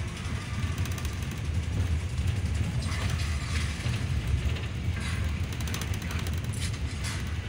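Yutong bus's engine and road noise from inside the moving cabin, a steady low drone, with rattling from the bus's fittings.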